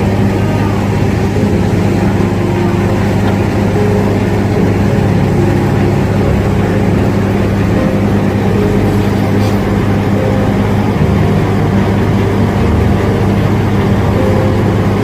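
Heavy construction machinery engine running steadily at a constant speed, a loud, even low hum.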